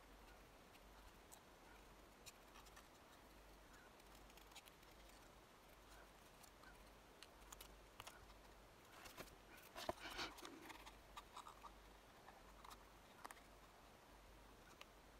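Faint snips of small scissors cutting card, with a brief burst of louder card rustling and clicks about ten seconds in.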